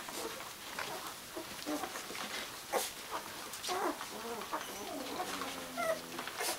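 Newborn Gordon setter puppies squeaking and whimpering in short high cries, with one longer whine about five seconds in.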